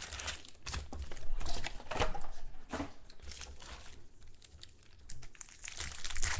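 Plastic wrapping on trading-card packs or a box being torn open and crinkled by hand, in a run of irregular crackles.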